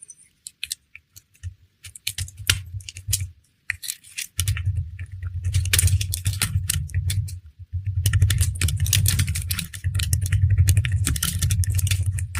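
Kinetic sand being crushed and pounded: dense crisp crunching and crackling, joined from about four seconds in by a heavy low rumble that breaks off briefly near eight seconds.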